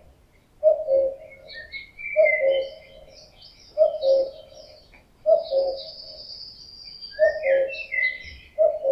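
Male common cuckoo calling its two-note "cuck-oo", the second note lower, six times at about one call every second and a half: the advertising call of the breeding season. Other small birds twitter faintly at a higher pitch behind it.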